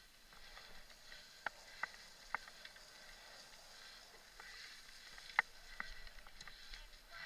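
Mountain bike riding over a bumpy grass and dirt trail: a faint steady hiss of tyres and air, with a handful of sharp clicks and knocks as the bike jolts over bumps, the loudest about five seconds in.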